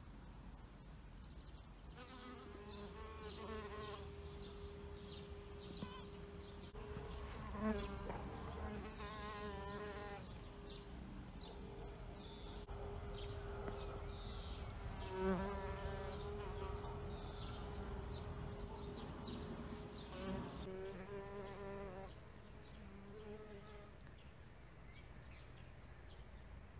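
A bee buzzing in flight, a steady hum with brief wavers in pitch that starts about two seconds in and dies away near the end.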